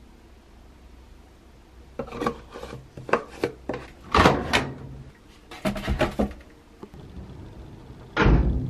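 Plastic detergent and softener dispenser drawer of a Maytag top-load washer being handled and pushed shut: a run of sharp clacks and knocks, then one heavier thump near the end.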